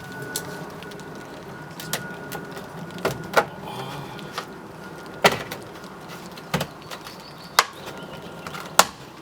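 Plastic trim-removal tools prying a plastic fog lamp cover off a van's front bumper, with about eight sharp, irregularly spaced clicks and snaps of plastic.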